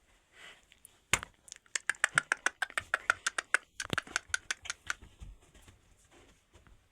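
A quick, even run of sharp clicks or taps, about five or six a second, starting about a second in and stopping about four seconds later.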